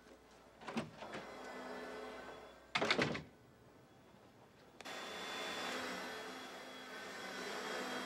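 A door shuts with a loud thump about three seconds in. About two seconds later an upright vacuum cleaner switches on suddenly and runs steadily.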